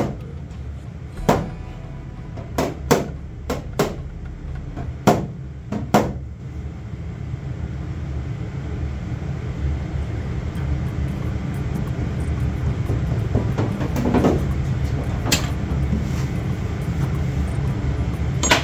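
Hand block-sanding of a car's primed rear quarter panel over a black guide coat, a rough rubbing that builds in the second half, to show up high and low spots in the bodywork. Several sharp knocks come in the first six seconds.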